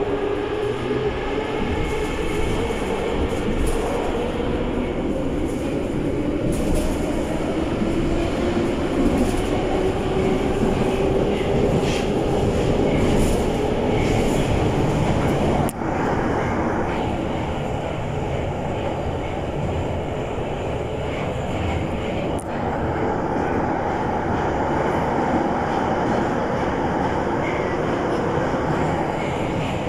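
An 81-717.5M metro train heard from inside the car as it accelerates out of a station and runs through the tunnel. The traction motors give a whine that rises slowly in pitch, over the steady noise of wheels on rail with some clickety-clack. About sixteen seconds in there is a click and a brief dip in the noise.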